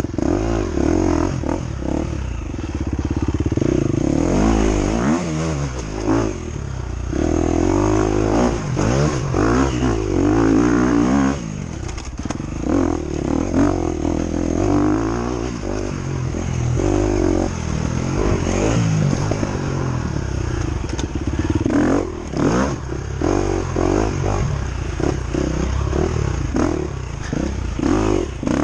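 Four-stroke KTM 250 EXC-F enduro motorcycle engine heard from on board, repeatedly revving up and easing off as it is ridden over a rough dirt track.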